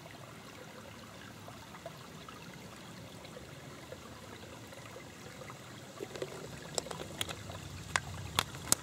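Gently trickling woodland stream, steady throughout. In the last few seconds, a plastic water bottle being handled gives several sharp crinkles and clicks.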